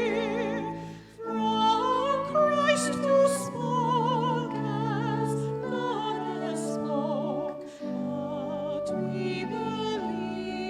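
A singer with strong vibrato performing a slow classical-style piece over held chords from an accompanying instrument. The music thins briefly about a second in, then resumes.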